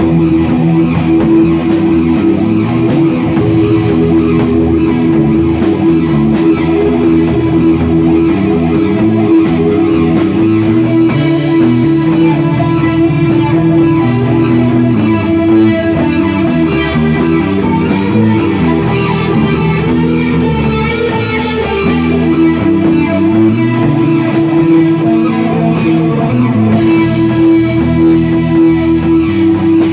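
Rock band playing live in a small rehearsal room: electric bass lines moving under sustained electric guitar, with drums and cymbals keeping a steady beat.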